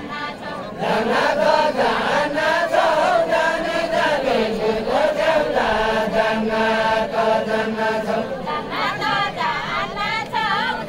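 A group of voices singing a Deuda folk song together in unison, unaccompanied, in long held notes that slowly bend in pitch; the singing swells to full strength about a second in.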